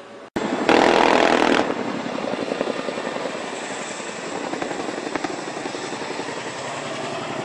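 Helicopter rotor beating rapidly, close by. About a second in, a loud rush of wind-like noise drowns it briefly.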